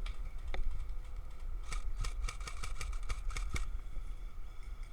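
Airsoft gun firing: a quick string of about a dozen sharp shots over roughly two seconds in the middle, with a couple of single clicks before it.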